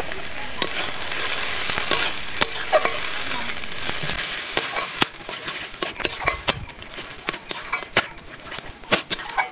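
Metal spatula stirring and scraping ground helencha (buffalo spinach) paste frying in oil in a metal wok, with a steady sizzle. From about halfway there are many sharp clicks of the spatula against the pan.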